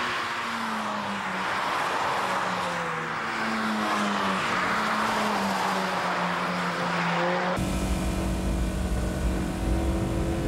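Honda race cars passing on a wet track: engines running at speed under a steady hiss of tyres on water. About seven and a half seconds in it changes suddenly to the steady engine drone and low rumble heard inside a race car's cabin.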